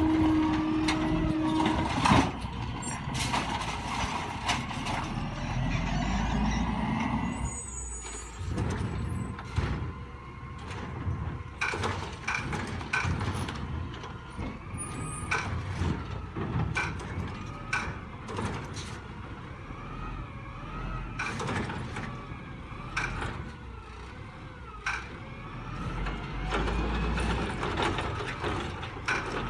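Autocar WX64 garbage truck with a Heil Rapid Rail automated side loader at work: engine running under many sharp clanks and knocks. A steady tone at the start cuts off about two seconds in.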